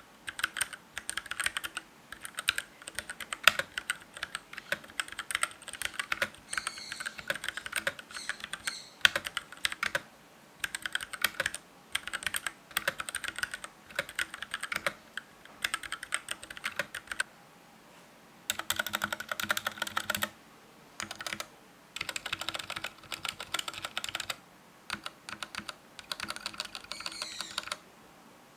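Typing on a stock Keychron K6 mechanical keyboard with its brown tactile switches: quick runs of keystrokes in bursts of a second or two, broken by short pauses.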